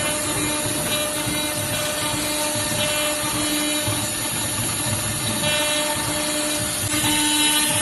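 Small ATC CNC router's spindle running while milling aluminium: a steady tone over a hissing cutting noise, growing slightly louder about seven seconds in.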